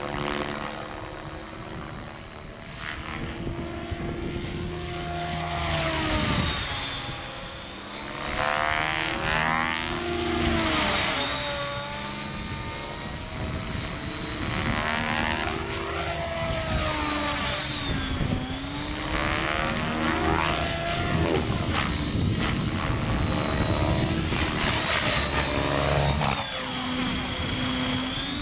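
Align T-Rex 700E electric RC helicopter flying overhead: a steady high whine from its brushless motor and gears over the rotor noise. The pitch slides up and down and the loudness swells and fades as it manoeuvres and passes.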